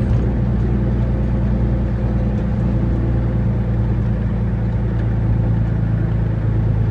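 Kenworth T800 truck's diesel engine running steadily on the move, heard from inside the cab.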